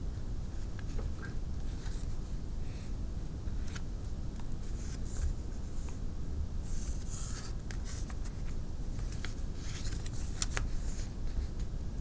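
Paper rustling and crinkling as hands fold and crease a sheet of printed paper into an origami model, in short scattered bursts that come thickest around the middle and again past the middle, over a steady low background rumble.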